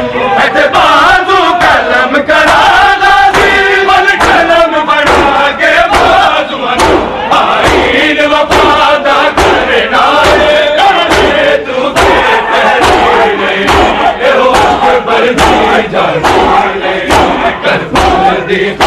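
A large crowd of men chanting a mourning noha in unison, with frequent sharp slaps of open hands beating bare chests (matam) throughout.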